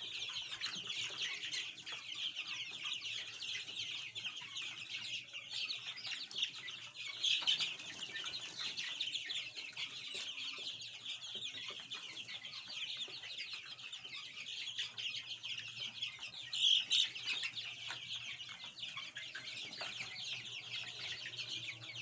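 A flock of three-week-old Sasso and Baladi chicks peeping continuously, many overlapping high chirps at once, with two louder flurries, one about a third of the way in and one about three quarters in.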